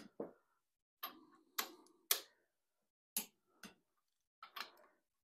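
Click-type torque wrench being pulled on the main bearing cap bolts of a Ford 200 cubic-inch straight-six block: about nine short, sharp clicks at irregular spacing as the ratchet head turns and the wrench breaks over at its 45 ft-lb preliminary setting.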